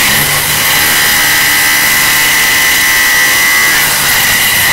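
Construction noise played blown out and distorted: a power tool's steady high whine over harsh hiss, the whine dropping away near the end.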